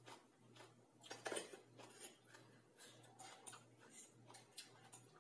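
Faint, scattered clinks and taps of a metal spoon against a glass bowl and plate while eating, with a louder clatter about a second in.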